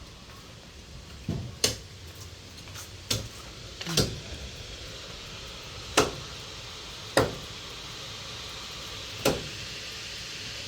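Knife chopping raw pork on a chopping board: about seven sharp, irregularly spaced chops over a steady background hiss.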